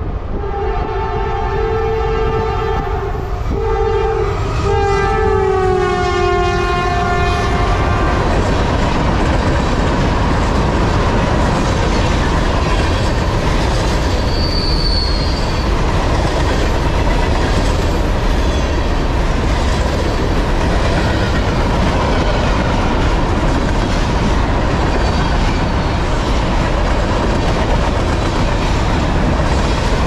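Norfolk Southern freight locomotive's air horn sounding in three blasts as the train comes by, its pitch dropping as the locomotive passes, stopping about eight seconds in. Then the steady rumble and clatter of empty garbage container cars rolling past, with a brief high wheel squeal midway.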